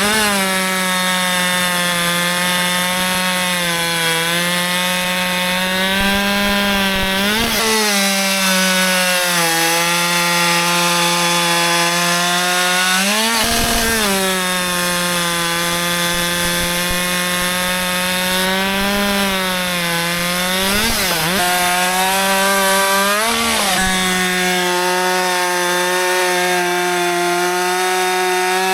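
Husqvarna 564 XP two-stroke chainsaw at full throttle, cutting wood. The engine note holds steady under load and rises briefly about five times, each time the chain eases or comes free of the cut.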